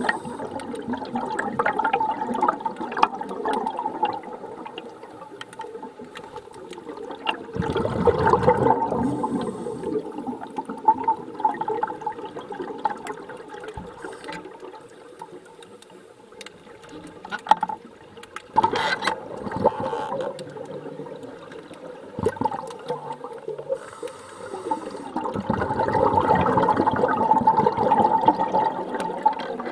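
Underwater bubbling and rushing of scuba divers' exhaled air from their regulators, swelling in louder bursts every several seconds.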